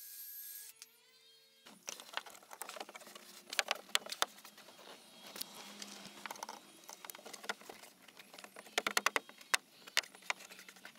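A cordless drill cutting plastic trim stops, and its motor whine winds down in pitch within the first second and a half. Then comes a run of irregular clicks, taps and rustles from car interior trim being handled, loudest about four seconds in and again near nine seconds.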